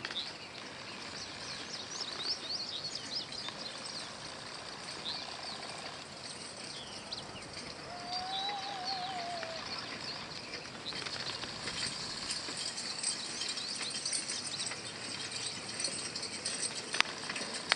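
Birds chirping steadily over the faint rattle of a mule-drawn hay rake moving through cut hay, with a brief wavering whistle about eight seconds in. Near the end, sharp clicks come in as the team draws close.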